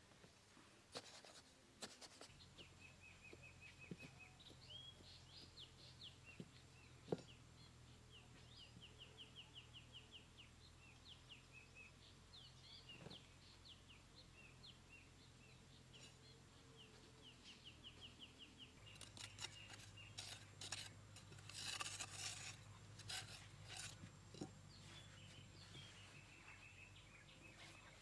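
Hands scraping and scooping loose sandy soil while digging a hole, in faint bouts of scratching that are densest about two-thirds of the way through. Small birds chirp and trill in the background throughout.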